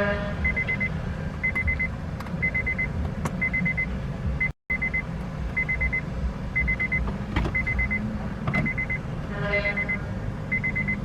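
A car's warning chime dinging about once a second, each ding a quick pulsed high tone, over a low rumble. The sound drops out completely for a moment about four and a half seconds in.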